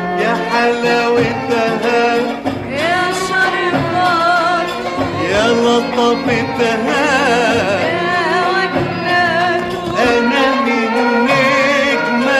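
Egyptian operetta song: a singer with a strong, wavering vibrato over an Arabic-style instrumental accompaniment.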